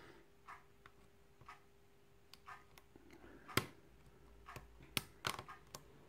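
Small, sharp metallic clicks and taps of a hook pick working the pins of a 5-pin euro cylinder lock under tension, sparse at first and coming more often in the second half, with one louder click a little past the middle.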